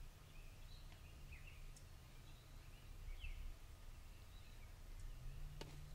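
Faint outdoor ambience: scattered short bird chirps over a low steady rumble, with a sharp click near the end.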